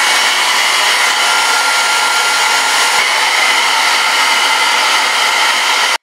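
Travel-size hair dryer with a diffuser attachment blowing steadily on its hot setting: a loud, even rush of air with a faint steady whine.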